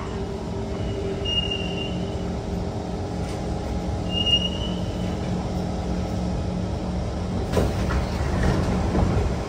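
Cabin noise of a Kawasaki C151 metro train running in a tunnel: a steady rumble and hum, with two brief wheel squeals and a few knocks near the end.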